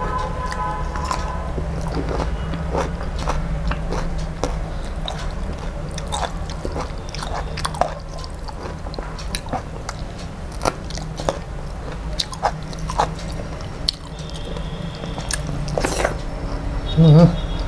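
Close-miked chewing of masala-coated bitter gourd and rice eaten by hand: wet mouth sounds with frequent small clicks and smacks. A short loud hum from the throat comes near the end.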